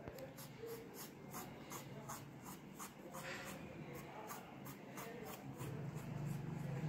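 Wooden ice cream stick dabbing and scraping paint onto paper in short strokes, about three a second. A low hum comes up near the end.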